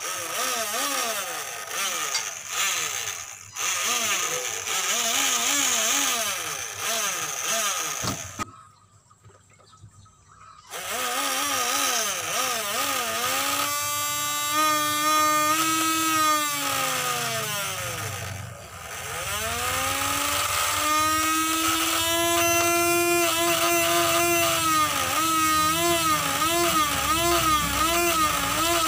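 Small electric motor in a homemade PVC submarine motor housing, running a propeller under water and whining as its speed is varied. The pitch wavers up and down, stops for about two seconds roughly a third of the way in, then climbs, holds, slows almost to a stop and runs up again.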